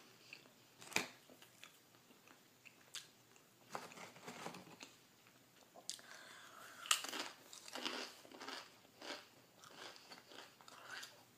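Close-up eating sounds: biting and chewing a grilled cheese sandwich, then crunching on Doritos tortilla chips. Scattered sharp crunches come throughout, the loudest about a second in and about seven seconds in.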